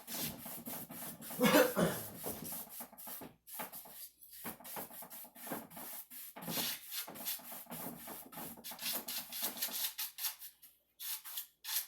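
Hand strokes rubbing and brushing across freshly sanded cedar wood, knocking the sanding dust off the surface, in quick irregular swipes. A louder stroke comes about a second and a half in.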